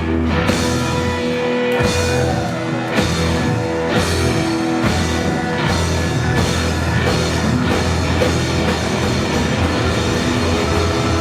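Live band playing fast, heavy rock with distorted guitar and a pounding drum kit.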